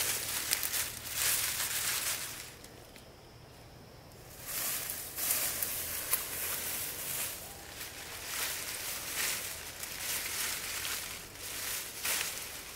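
Leaves rustling in uneven bursts, with a lull of about two seconds a couple of seconds in.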